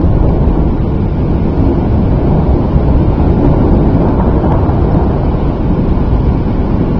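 Strong wind buffeting the microphone: a loud, steady low rumble without breaks.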